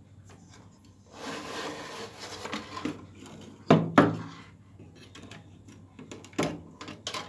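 Handling noise: rubbing and scraping for about two seconds, then two sharp knocks a fraction of a second apart, and a few lighter clicks near the end.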